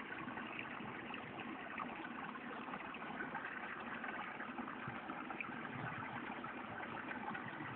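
Steady rush of stream water running over rocks.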